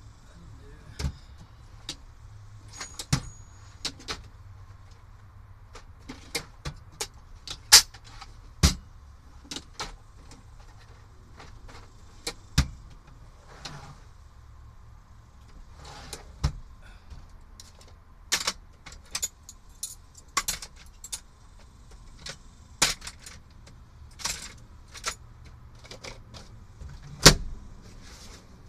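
Irregular metallic clinks and clanks of hand tools and small metal parts being rummaged through in a toolbox, a few of them loud, over a faint steady low hum.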